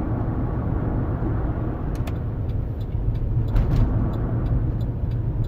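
Steady low rumble of engine and tyres heard from inside a 2008 Chevy Tahoe Z71 as it drives along a snowy road, with a few faint clicks.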